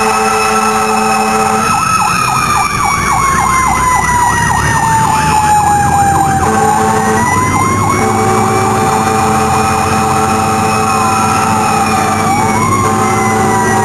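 Fire engine sirens on an emergency response. A wailing siren slowly falls in pitch, rises and falls again, with a fast warbling yelp over it for several seconds and a second rising wail near the end. A steady low horn-like tone drops out about two seconds in and comes back halfway through.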